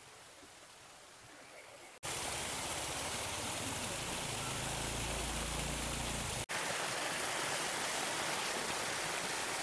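Small forest waterfall pouring and splashing down a sloping rock slab, a steady rushing of water. It is faint at first and much louder from about two seconds in, with a brief break about six and a half seconds in.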